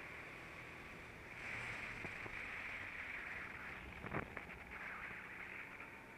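Go-kart running on track, heard faint and muffled as a steady hiss of engine and wind that swells about a second in. A few sharp knocks come about four seconds in.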